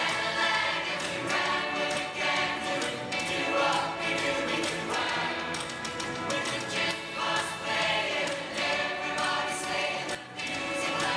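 A choir singing a song with musical backing.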